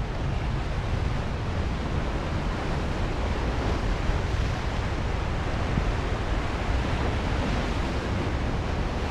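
Ocean surf breaking and washing over rocks at the foot of a sea cliff, a steady wash of noise without let-up, over a low rumble of wind on the microphone.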